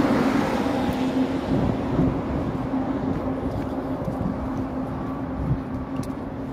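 Street noise dominated by a steady low hum of idling vehicle engines, fading slowly.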